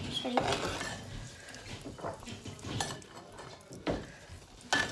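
Steel spoon stirring a thick ginger-tamarind paste in a clay pot, scraping and clinking against the pot's sides in scattered strokes, with one sharper knock near the end.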